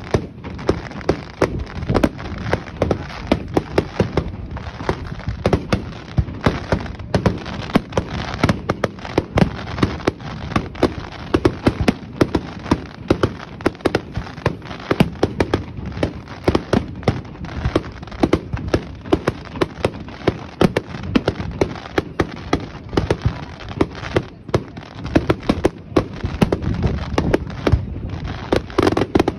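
Fireworks display: a rapid, unbroken barrage of bangs and crackles from shells launching and bursting, several a second, over a continuous rumble.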